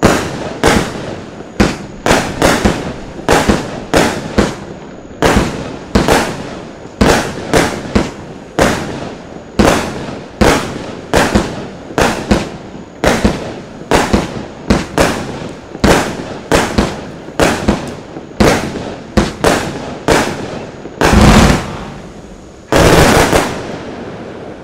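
Lesli Dark Dragon 200-shot, 25 mm compound firework cake firing: a rapid run of sharp bangs, about one to two a second. Near the end come two longer, louder bursts, the cake's finale, and then the firing stops.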